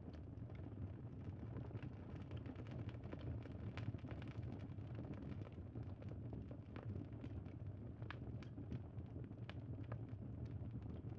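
Bonfire crackling: a steady low burning noise with irregular sharp pops and snaps scattered throughout.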